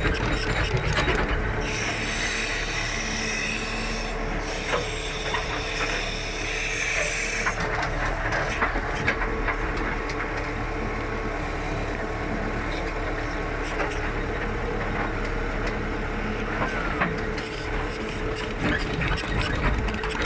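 JCB 3CX backhoe loader's diesel engine running steadily, heard from inside the cab, while the backhoe digs, with the bucket scraping and knocking against soil and stones.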